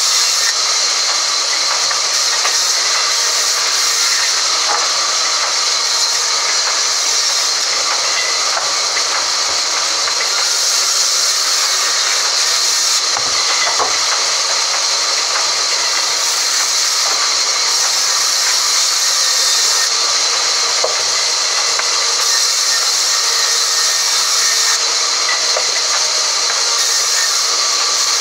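Sawmill band saw running and slicing boards from a crooked log: a loud, steady, high hiss that does not let up.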